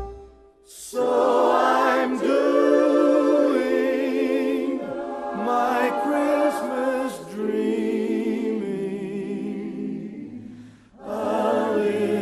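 Background music: a choir singing a cappella with wavering, vibrato-rich voices, pausing briefly near the start and again near the end.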